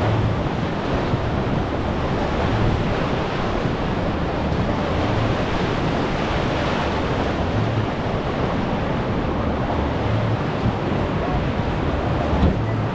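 Whitewater rapids rushing steadily around a sweep boat, heard from on board.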